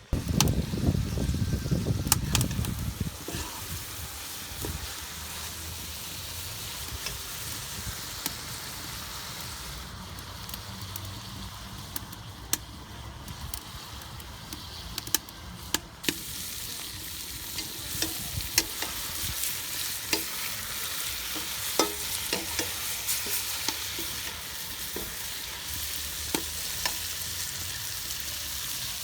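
Meat and vegetables for shurpa frying in hot oil. The sizzle starts suddenly and is loudest for the first three seconds or so, then settles into a steady sizzle broken by occasional sharp clinks as the food is stirred.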